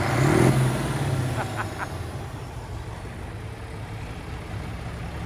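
A tractor's diesel engine revving hard, loudest in the first second, then running on more quietly.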